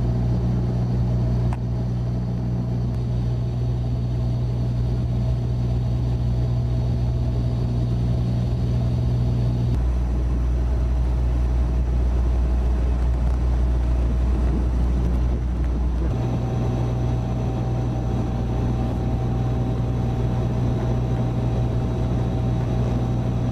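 Steady drone of an engine, its low hum shifting abruptly to a deeper note about ten seconds in and back about six seconds later.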